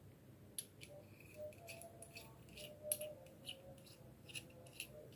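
Faint, irregular clicks and taps of small metal threaded pipe fittings being handled.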